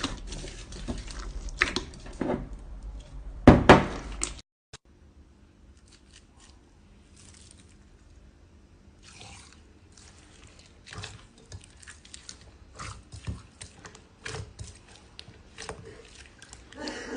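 Slime being squished and worked by hand, with crackly, crunchy pops and clicks, loudest near four seconds in. It cuts off suddenly and gives way to quieter, scattered sticky clicks.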